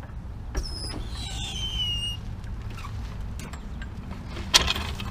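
A car being let down off a hydraulic floor jack. A click is followed by a high squeal that falls in pitch for about a second and a half, and a sharp metallic clank comes near the end.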